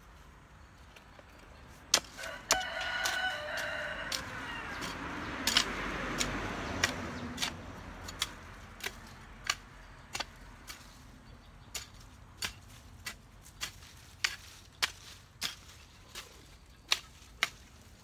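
A hoe chopping into garden soil, a sharp knock about every half to three-quarters of a second, steady once it starts about two seconds in. A rooster crows a few seconds in.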